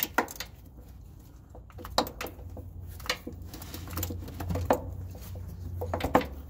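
Scattered metal clicks and knocks from a power steering pump being worked by hand onto the air compressor's drive gear and pushed into place. A low steady hum runs underneath.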